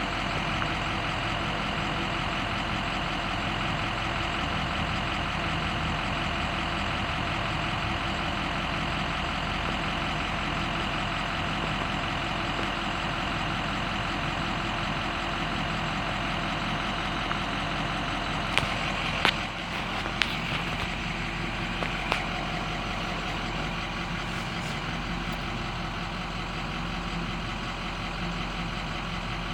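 Steady engine sound from a 2004 Ford F-250's 6.0-litre Power Stroke diesel, a truck with a no-start problem. A few sharp clicks come about two-thirds of the way through.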